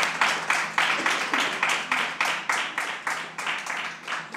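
Audience clapping in unison, a steady beat of about four claps a second that gradually dies down.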